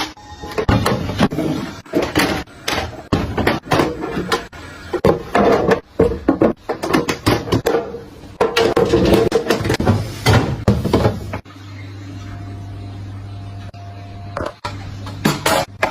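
Food packages and storage containers being handled and set down while a refrigerator is stocked: a quick run of clacks, knocks and rustling. Near the end the clatter stops for about three seconds and a steady low hum is heard, before a few more knocks.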